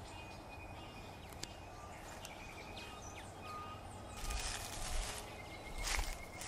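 Quiet outdoor ambience: a steady low rumble with a few faint, short bird chirps, and brief rustling about four seconds in and again near the end.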